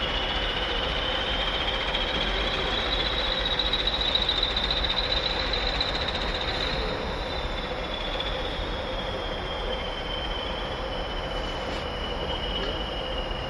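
Class 20 diesel locomotive moving slowly away over pointwork, its wheels squealing in a high tone that climbs for the first few seconds, then falls and fades. Steady rail noise runs underneath.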